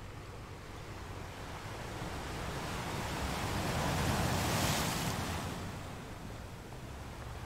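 Ocean waves washing on a beach, a steady hiss of surf. One wave swells to a rush about four seconds in and then fades away.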